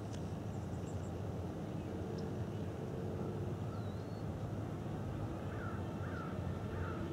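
Distant steady low rumble with a faint hum from Joby Aviation's rolling test rig: a truck carrying a boom of electric motors and propellers, driving down the runway toward the listener. Birds call several times in short falling notes, mostly in the last second or two.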